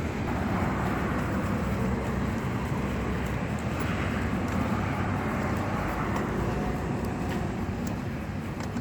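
1998 Honda Accord's engine idling steadily, running on a newly cut replacement key that works.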